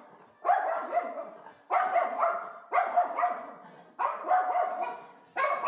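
A dog barking repeatedly, five steady barks at about one a second, each trailing off before the next.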